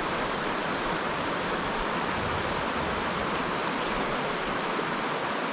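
Mountain stream water running, a steady even rush with no breaks.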